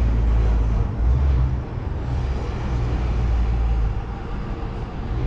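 Outdoor background noise: a steady low rumble with no distinct event.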